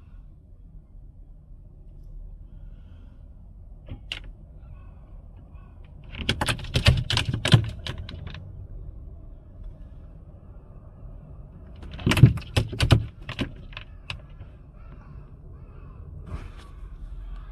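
Two bursts of rapid knocks and thumps, about six seconds in and again about twelve seconds in, as a hawk beats its wings and strikes against a car windshield from the outside.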